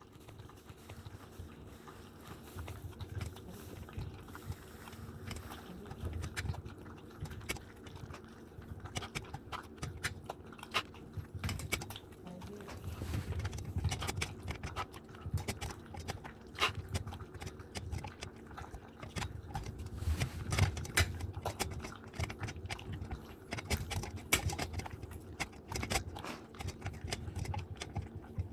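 Borzoi eating from a food bowl: steady chewing and crunching with many small clicks and knocks against the bowl.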